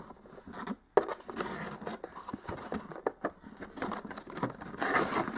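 Packaging being handled and opened by hand: rustling and scraping with scattered small clicks, and one sharp click about a second in.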